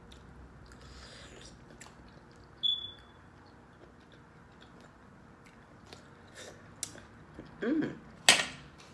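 Close-up mouth sounds of a person chewing a clam: soft wet clicks and smacks with a short squeak about three seconds in. Near the end come a brief hum and then a sharp, loud smack.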